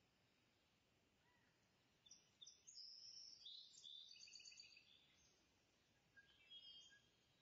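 Near silence with faint bird chirping: a quick series of high notes about two seconds in, and a shorter run of chirps near the end.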